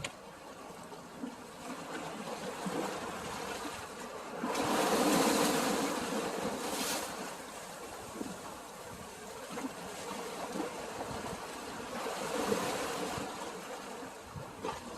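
Sea waves washing, with water sloshing. One surge swells louder about four and a half seconds in and dies back by about seven seconds.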